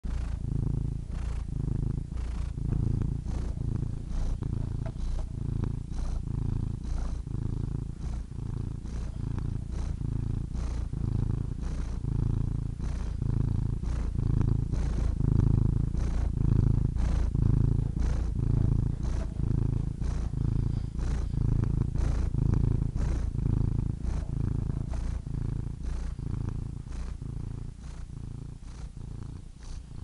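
Domestic cat purring loudly and steadily, a low rumble that pulses about twice a second with each breath in and out, growing somewhat softer near the end.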